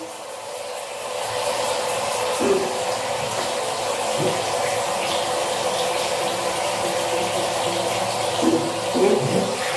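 Water running steadily from a handheld shower head onto a tiled shower floor, building up over the first second.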